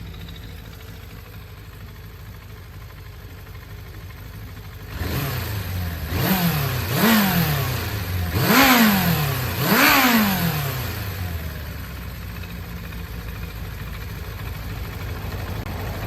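Suzuki GSX400 Impulse (GK79A) inline-four engine idling, then revved four times in quick succession, each rev rising and falling back, before it settles to a steady idle. The seller lists it as running with no abnormal noise.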